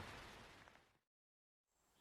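Steady rain hiss fading out to dead silence about a second in, then faint outdoor ambience fading back in near the end.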